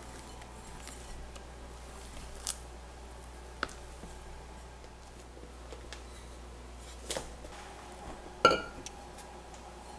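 Kitchen utensils and bowls handled during baking prep: a few light taps and clicks, then one loud ringing clink about eight and a half seconds in.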